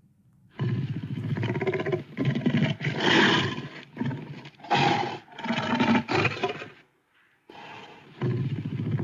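Carcharodontosaurus dinosaur roar sound effect: several roars one after another, a short pause about seven seconds in, then another roar begins.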